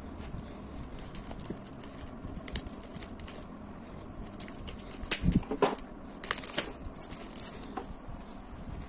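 Handling noises from unpacking a parcel: scattered light taps and rustles, with a cluster of louder knocks and rustling a little past halfway.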